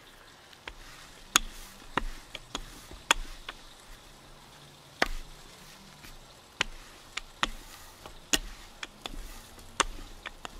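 Irregular sharp knocks and clacks of a rolling pin and hands working naan dough out thin on a floured board, about two or three a second with short gaps.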